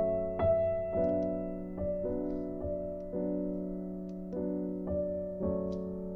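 Background piano music: slow, unhurried notes and chords, a new one struck about every half second to one second.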